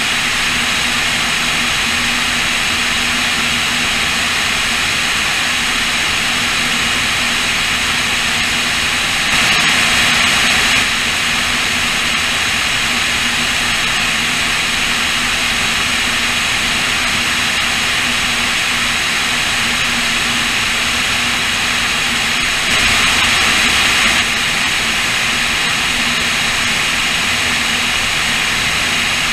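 Cessna O-2A in level flight heard from a camera on its wing: the steady drone of its two push-pull Continental IO-360 piston engines and propellers under a heavy rush of wind. The rush swells louder twice for a second or so.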